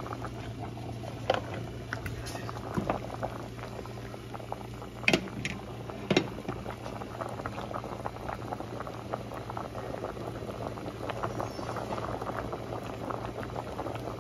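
Pot of diced sweet potatoes in water at a rolling boil, bubbling and crackling steadily, with a few sharper clicks about a second in and again around five and six seconds in.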